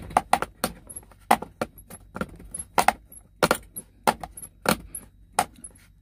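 USB charger socket being pushed and twisted into a tight-fitting hole in a truck's plastic dash panel: an irregular run of sharp plastic clicks and rattles.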